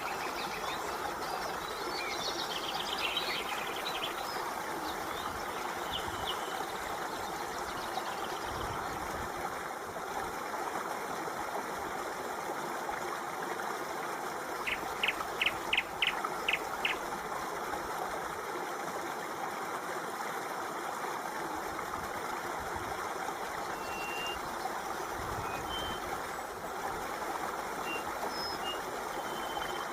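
Water running steadily, like a stream, with birds chirping now and then. A little past halfway comes a quick run of six short high notes.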